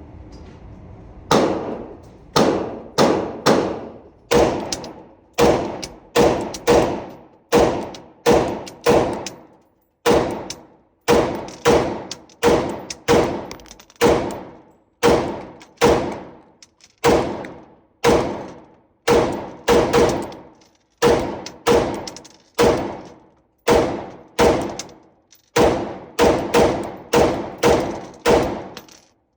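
Repeated gunshots at a shooting range, about thirty-five in all, starting about a second and a half in. They come in quick strings of two to four shots, each followed by a short ringing decay.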